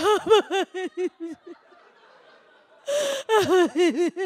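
A woman's mock sobbing into a microphone, a comic imitation of melodramatic crying. A run of about seven quick sobs dies away in the first second and a half. After a pause comes a sharp gasping breath about three seconds in, then another run of sobs.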